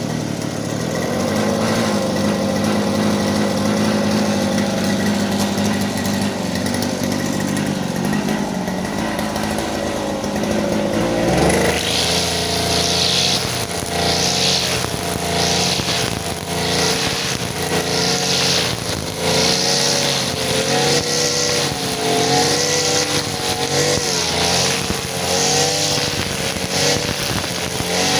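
Petrol brush cutter engine running steadily. About eleven seconds in, its speed starts wavering up and down as it swings through grass, with a swishing hiss of cut grass about once a second.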